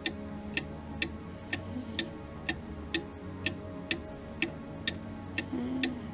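A clock ticking steadily, about two ticks a second, over a low steady hum.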